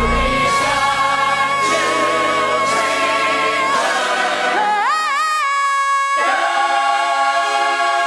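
A pop song with a singer holding a long note with vibrato, then sliding up to a higher held note about five seconds in. The low backing drops away from about four seconds and comes back in full about six seconds in.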